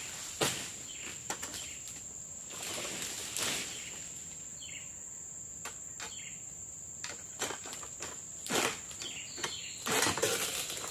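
Irregular dry rustling and scraping of oil palm fronds as a long-pole egrek sickle works among them, over a steady high-pitched insect drone.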